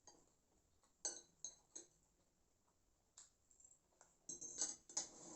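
Faint clinks and taps of an eating utensil against a dish, a few spaced apart, then a quick run of taps near the end.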